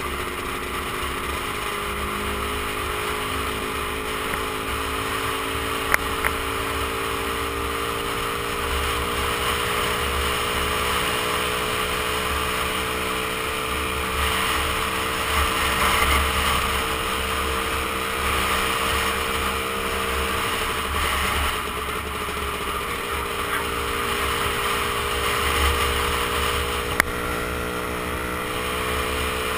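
Lambretta scooter's AF Rayspeed Rapido 225 two-stroke engine running at a steady cruise, its pitch rising and falling gently with the throttle, under a heavy rush of wind on the microphone. A couple of sharp clicks come about six seconds in, and another near the end.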